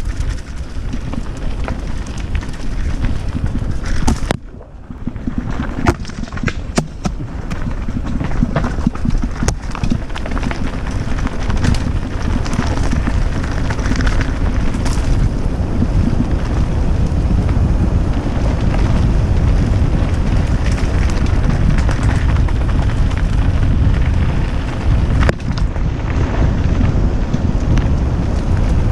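Wind buffeting a helmet-mounted GoPro's microphone as a mountain bike rolls fast down a dirt trail, with frequent sharp knocks and rattles from the bike over bumps. The noise dips briefly about four and a half seconds in, then runs a little louder.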